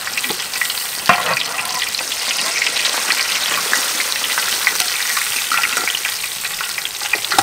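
Whole fish deep-frying in hot oil in a large wok: a steady crackling sizzle. A single knock about a second in.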